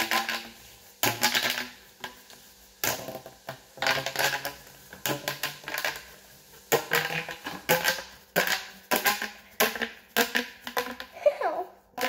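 Plastic pop tubes being stretched and bent, their corrugated ribs snapping open and shut in repeated runs of rapid clicks.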